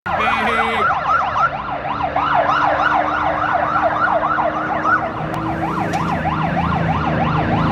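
Vehicle siren in a fast yelp, its pitch sweeping up and down about four times a second, with vehicle engines running low underneath.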